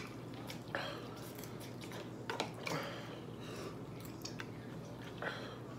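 A metal spoon clicking and scraping against a bowl, with the chewing of a mouthful of noodles. A few light clicks are spread through.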